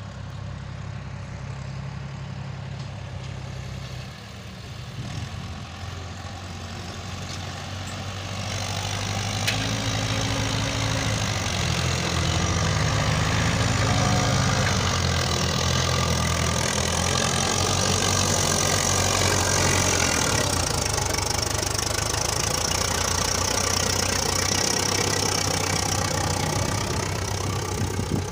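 Sonalika DI 750 tractor's diesel engine running steadily under load as it drags a land leveller through sand. It grows louder about a third of the way through as the tractor comes close, with a steady hiss rising along with it.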